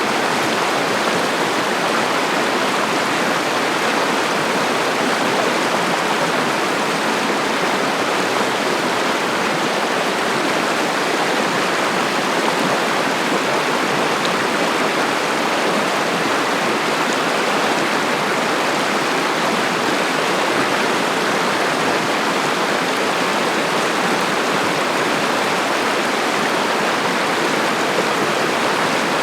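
Cossatot River water rushing steadily over rocks, a loud even rush that does not change.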